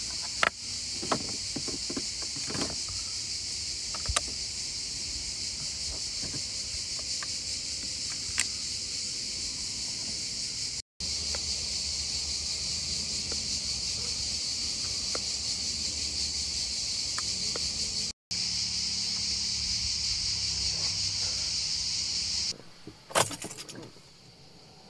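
Steady high-pitched drone of insects, typical of a summer cicada chorus, with scattered clicks and knocks of handling. The drone cuts off about three-quarters of the way through.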